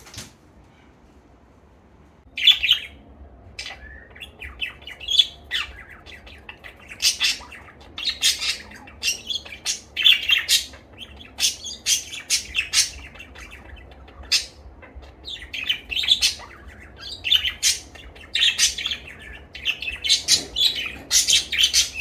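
Budgerigar chirping: a fast run of short, high chirps that starts about two seconds in and goes on with only brief pauses.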